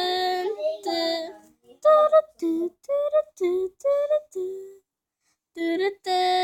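A young voice singing unaccompanied, a string of short wordless sung notes like 'doo-roo-doo', with a brief pause about five seconds in before a held note.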